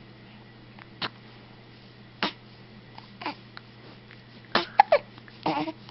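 Baby hiccuping: short, sharp hiccups about once a second, with a quick cluster of small vocal sounds near the end.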